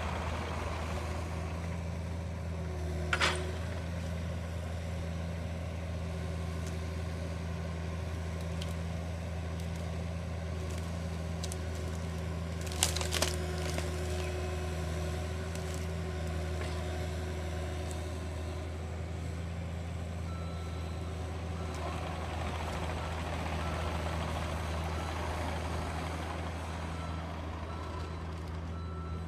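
Cat mini excavator's diesel engine running steadily under load as its rotating grapple loads brush, with two sharp impacts, about three and thirteen seconds in. From about two-thirds of the way through, a high warning beep sounds on and off.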